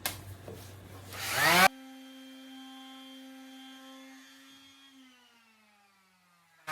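Small electric power tool used to sand wood: its motor whine rises in pitch for about the first second and a half, then runs steady and winds down, falling in pitch and fading near the end.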